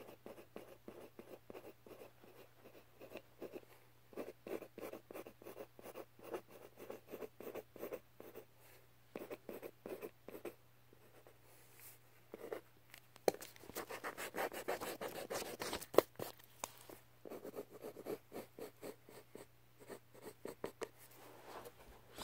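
Black pen scratching on paper in many quick, short strokes while drawing feathers. The strokes run together into a denser stretch of scribbling a little past halfway. A faint steady low hum lies underneath.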